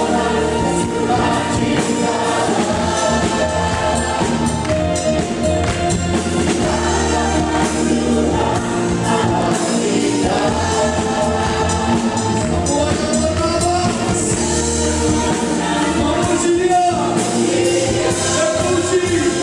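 Live gospel worship music: a band of keyboards and drum kit playing while a group of voices sings a slow, sustained melody.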